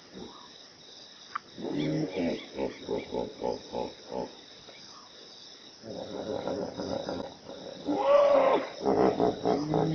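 Hippopotamus calling: a run of short pulsed calls at about four a second, then after a pause a second, louder bout with one longer drawn-out call about eight seconds in.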